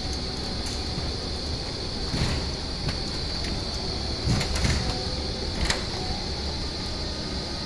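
Electric drive unit of a retractable stadium roof running on a speed test, its motor and gearbox driving a pinion along a toothed rack: a steady mechanical hum with a high whine, and a few clicks and knocks.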